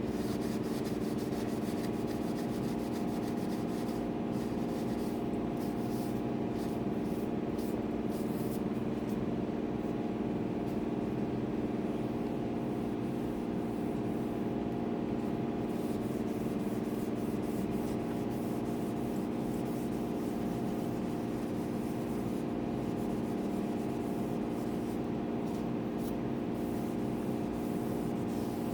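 A steady hum runs underneath throughout. Over it come faint, intermittent rubbing strokes of hand work on a guitar body's dyed maple veneer top.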